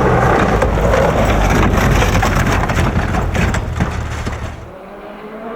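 Rally car under hard power, its engine rumbling under a dense clatter of crackles and flying stones, loud. About four and a half seconds in the sound drops abruptly to a quieter, steady engine note.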